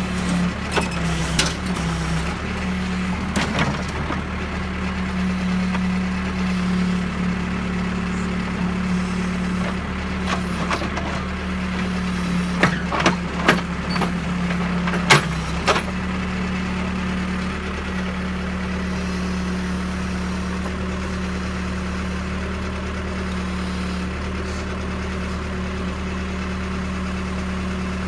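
Case backhoe loader's diesel engine running steadily while the boom and bucket are moved, with several short sharp clanks, most of them about halfway through.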